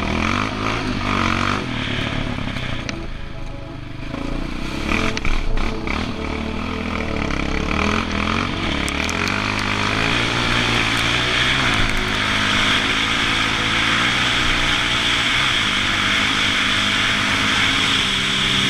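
Yamaha Raptor quad's single-cylinder four-stroke engine revving up and down under riding load, with a brief clatter about five seconds in. In the second half the engine pitch steadies and wind rush over the microphone builds as the quad picks up speed on a straight gravel track.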